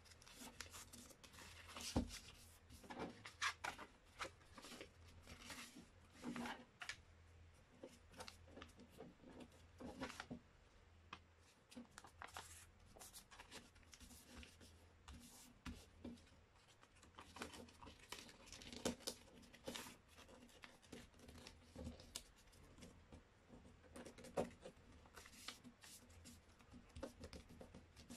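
A sheet of paper being folded by hand on a tabletop: faint rustling, sliding and crisp creasing at irregular moments, with a sharper tap about two seconds in.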